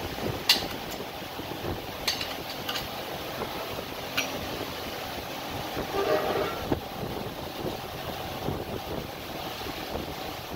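Steel gearbox parts, a synchronizer hub, rings and a gear, clicking and clinking as they are handled and fitted together by hand, with a few sharp metallic clicks, over a steady background rumble.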